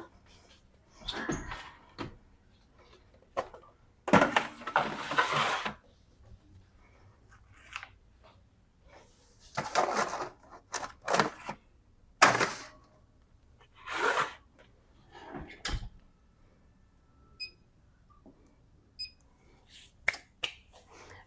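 Kitchen handling sounds as baking pans go into the oven: a series of separate scrapes, rustles and knocks, the longest a scrape of about a second and a half, with a low thump later on.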